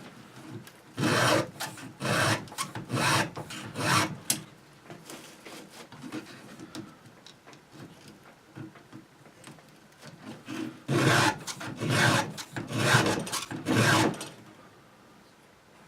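Round chainsaw file scraping forward across the steel cutter teeth of a chainsaw chain held in a bar-mounted file guide: a run of short rasping strokes, a few seconds of softer scratching, then another run of strokes near the end.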